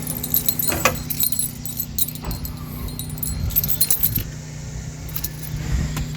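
Metallic jingling, rattling and clicks, busiest in the first four seconds, as a roof bar and its loose metal fittings are handled. A steady low hum runs underneath.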